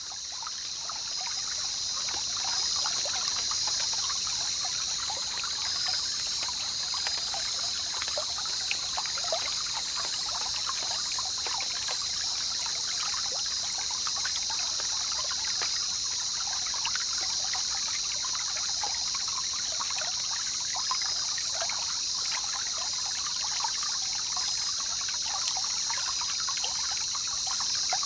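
Trickling water with a steady high-pitched buzz above it, swelling in over the first couple of seconds and then holding level.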